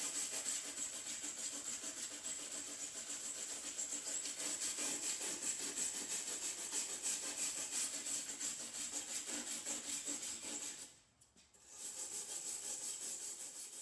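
Rusty steel pinch weld of a Toyota Land Cruiser's tailgate window opening being scrubbed by hand with an abrasive, in rapid back-and-forth scratchy strokes to take pitted rust down toward bare metal. The scrubbing stops briefly about eleven seconds in, then resumes.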